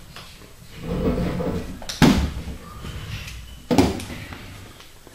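Hand wrench working the main bearing cap bolts of a Chevy 350 block: a low scraping rumble, then two sharp knocks about a second and a half apart as the torqued bolts are broken loose and the tool is handled against the block.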